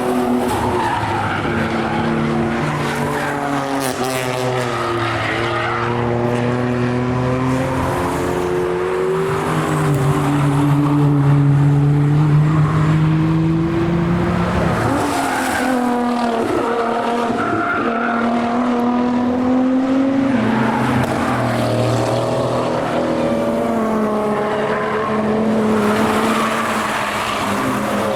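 Several cars going through a Nordschleife corner one after another, their engines revving up and falling away as they brake and accelerate, with passes overlapping.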